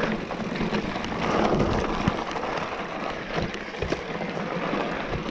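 Electric mountain bike riding down a dirt singletrack: steady tyre and wind noise, with a couple of sharp knocks, about two and four seconds in, as the bike rattles over rough ground.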